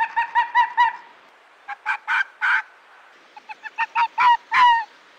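A bird honking: short, loud, repeated calls in three quick runs, several calls a second.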